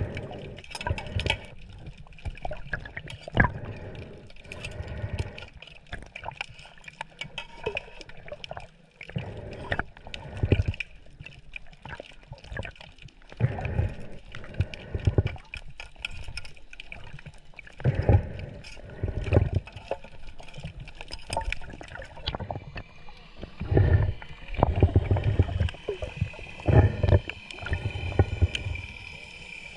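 Water sloshing and gurgling close to the camera in irregular low surges, with scattered clicks and a thin steady high tone underneath.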